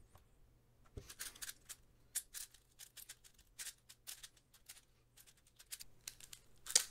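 Plastic layers of a YJ MGC 6x6 speedcube clicking and clacking in quick, irregular runs as it is turned by hand, with a louder clack near the end. The cube is straight from the box and unlubricated, which shows in its dry turning sound.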